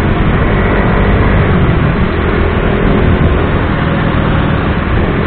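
Wind rushing over the microphone of a moving 150 cc single-cylinder motorcycle, with the engine running steadily beneath it.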